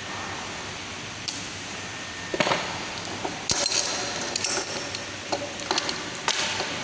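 Small metal parts clinking and being tapped with a tool while a broken chain link is fixed: a series of sharp clicks and knocks starting about two and a half seconds in, over a steady hiss.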